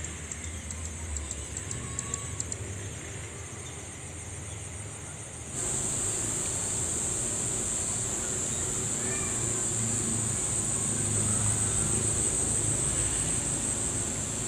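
Insects shrilling in a narrow high band: pulsed chirping at first, then about five and a half seconds in a louder, continuous high buzz starts abruptly and holds.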